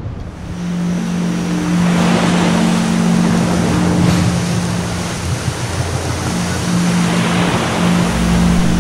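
Motorboat engine running steadily with a low hum, under a loud rush of wind and water.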